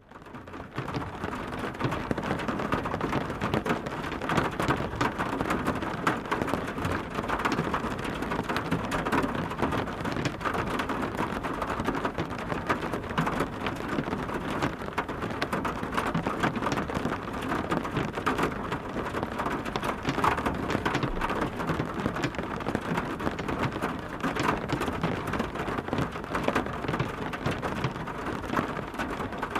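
Steady, heavy rain, a dense patter of drops hitting a surface, fading in over the first second.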